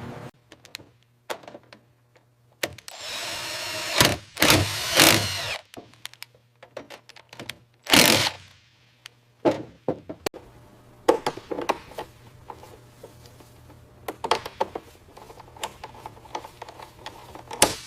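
Workshop tool sounds: a power tool whirs for about two and a half seconds, a second short burst follows near the middle, then scattered clicks and knocks of tools on metal parts.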